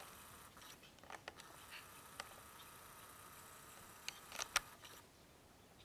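Faint outdoor background hiss with a few short, sharp clicks and taps, the loudest a small cluster about four and a half seconds in.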